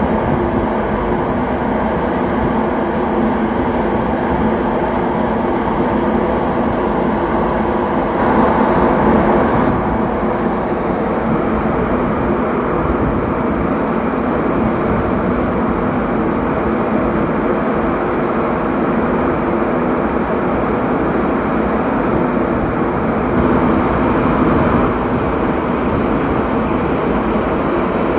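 Steady drone of a ship's engine and machinery heard on deck, with a low, uneven rumble underneath; it swells briefly twice.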